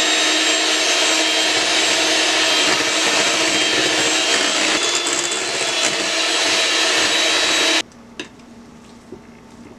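Electric mixer running steadily with a motor whine, its wire beaters whipping cake batter in a glass bowl. It switches off suddenly about eight seconds in.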